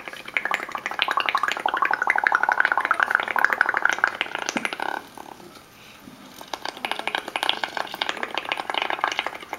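Blowing through a drinking straw into a bowl of tempera paint mixed with soapy bubble solution: rapid bubbling and gurgling, in two long blows with a break of about a second halfway through.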